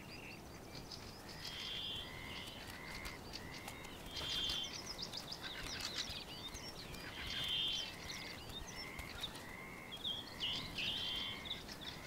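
Birds calling: one repeats a short, arched note every half second or so, with higher trills every few seconds and scattered scratchy chirps, over a faint steady background hiss.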